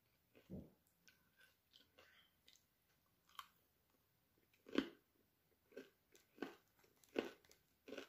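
A person chewing and biting food close to the microphone while eating nam tok moo, a spicy pork salad, with raw vegetables. It comes as a string of separate short crunches, the loudest a little under five seconds in and again just past seven seconds.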